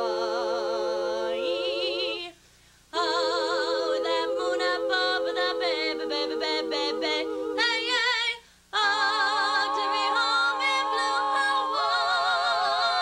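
A female a cappella quartet singing in harmony, holding long notes with vibrato, with two short breaks where all the voices stop together, about two and eight seconds in.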